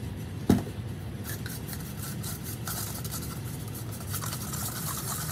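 A soft-bristled brush stirring mica powder into isopropyl alcohol in a small paper cup: quick, fine scratchy swishing strokes, after a single knock about half a second in.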